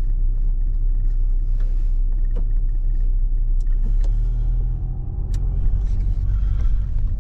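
Steady low rumble of a car's engine and tyres heard from inside the cabin while driving, with a few faint ticks.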